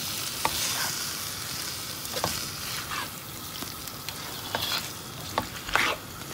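Chicken and vegetables sizzling in a frying pan while being stirred, with a spoon or spatula scraping and knocking against the pan about seven times. The loudest knock comes near the end.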